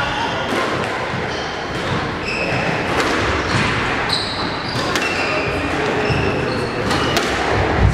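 Court shoes squeaking briefly, several times, on a wooden squash court floor, with a few sharp knocks of the squash ball; a louder, deeper thud near the end.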